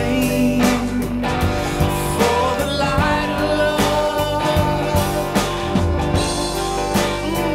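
Rock band playing an instrumental passage: electric guitars and bass over a drum kit keeping a steady beat.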